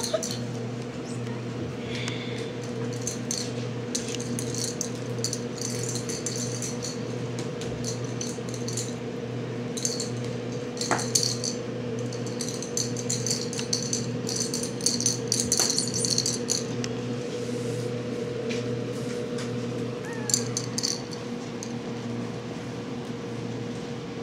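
Kittens batting a small rattling cat toy about: on-and-off bursts of light, high rattling and jingling, with a couple of sharp taps, over a steady low electrical hum.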